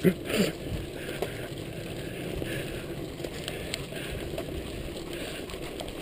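Mountain bike rolling over a rocky gravel road: a steady rumble of tyres on loose stones, with small clicks and rattles from the bike.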